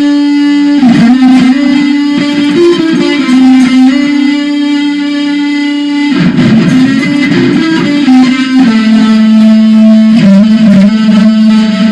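Very loud, distorted electric-guitar music: long held notes, each full of overtones, shifting to a new pitch a few times.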